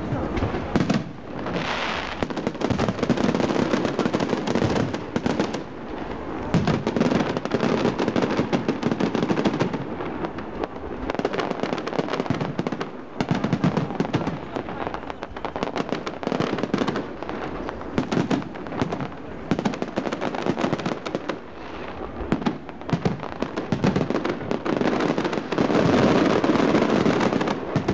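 New Year's fireworks display: aerial shells bursting in quick succession with many sharp bangs and crackles, densest and loudest near the end.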